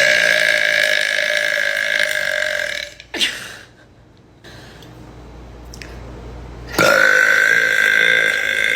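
A woman belching, two long drawn-out belches of about three seconds each with a pause of a few seconds between them.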